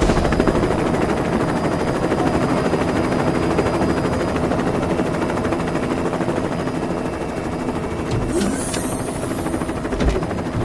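Helicopter rotor chopping steadily as it hovers, a fast, even beat of blade slaps. A hiss joins in near the end.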